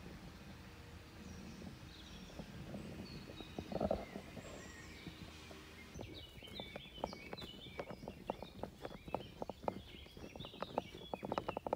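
Woodland birds chirping and singing. A single louder knock comes about four seconds in. From about halfway on, a steady run of footsteps on a forest path follows, roughly three steps a second.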